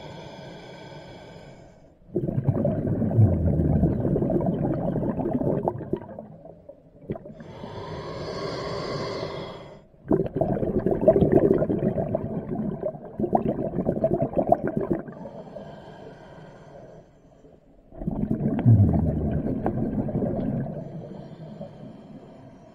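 Scuba diver breathing underwater through a regulator: three slow breath cycles, each a hissing inhale with a faint whistling tone, then a long rush of exhaled bubbles.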